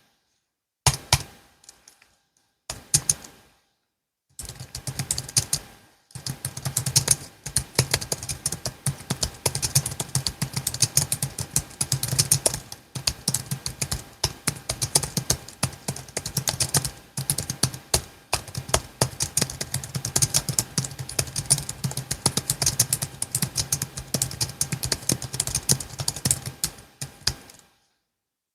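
Logitech MX Keys S low-profile keyboard being typed on. A few separate keystrokes come first, then steady fast typing from about four seconds in, stopping shortly before the end.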